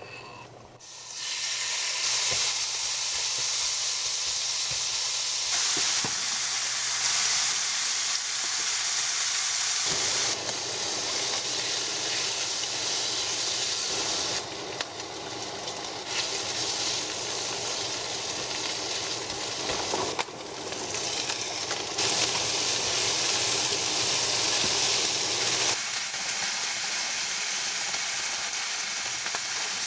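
Food sizzling and frying in a hot pan, a loud steady hiss that starts about a second in and shifts abruptly in level several times, as between separate shots of the cooking.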